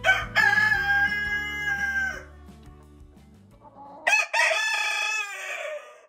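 Rooster crowing twice: a long crow with its last note held, then a second crow about four seconds in.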